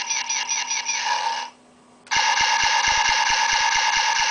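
Toy Han Solo blaster pistol playing its electronic sound effects: a buzzy sound pulsing about five times a second, which stops about one and a half seconds in, then after a short pause a steady electronic tone about two seconds in.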